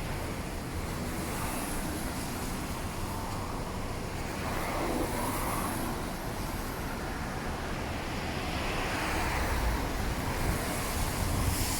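Road traffic passing on a city street, a steady rumble of vehicles that swells louder as one passes near the end.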